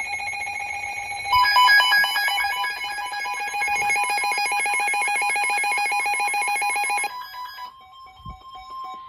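Emergency alert tones for a special marine warning: a warbling, ringing electronic alarm that gets louder about a second in and cuts off about seven seconds in, followed by a quieter steady single tone.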